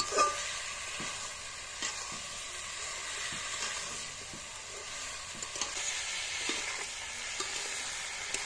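Chicken pieces frying and sizzling in a black wok while a flat metal spatula stirs them, scraping and clicking against the pan. A sharp knock of the spatula comes just after the start, the loudest moment; smaller clicks come every second or so.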